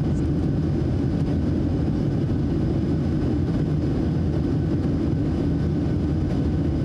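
Steady low roar of a Boeing 737-700's CFM56-7B turbofan engines and rushing air at take-off thrust, heard inside the cabin from a seat by the wing, with a few faint steady whine tones above it.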